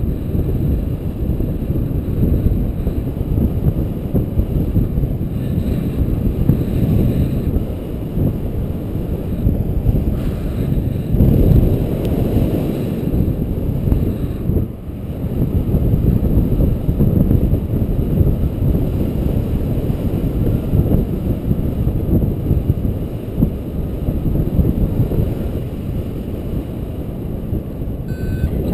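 Wind buffeting the microphone of a paraglider pilot's camera in flight: a loud, steady low rumble of rushing air that swells and dips unevenly.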